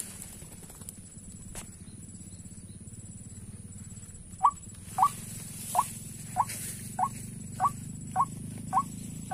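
White-breasted waterhen calls: a steady series of short, upward-sliding notes, repeated about one and a half times a second, beginning about halfway through.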